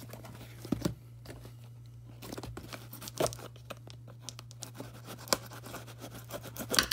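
Cardboard shipping box being worked open by hand: scattered rustling and crinkling with a few sharp cardboard cracks and tears, the clearest about 1, 3 and 5 seconds in and again near the end.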